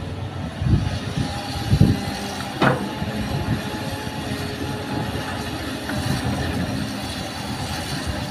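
Hitachi hydraulic crawler excavator's diesel engine running steadily under load while it swings. Two low thumps in the first two seconds, then a single sharp metallic clank.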